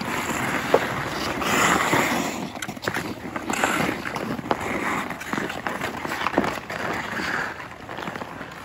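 Ice skate blades scraping and carving across rink ice, with scattered sharp clacks of hockey sticks striking the puck and the ice.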